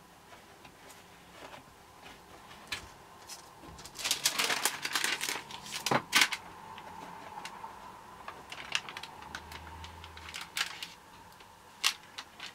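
Pages of a stamp stock book being handled and turned: crisp rustling and crackling of the stiff leaves and their translucent interleaving sheets, with scattered clicks and ticks. The busiest stretch comes about four to six and a half seconds in, with a few sharper clicks near the end.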